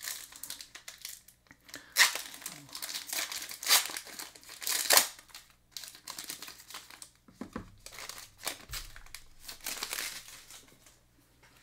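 Foil wrapper of a Panini football trading card pack crinkling and tearing as it is opened by hand, in sharp crackly bursts, the loudest in the first half, then softer crinkling that dies away near the end.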